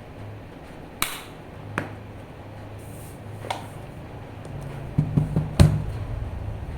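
Sharp clicks and knocks of a ThinkPad X280 laptop's case and parts being handled: single clicks spaced a second or so apart, then four quick knocks near the end, the last the loudest, over a steady low hum.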